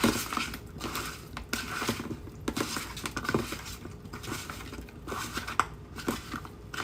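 A utensil scraping and clinking against a pan as a stir fry is stirred and tossed, in irregular knocks and scrapes.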